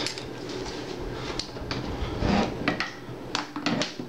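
Steel parts of a Uk vz. 59 machine gun clicking and clunking as the gun is handled and worked on a wooden table: a string of sharp metal clicks with a heavier knock about two seconds in.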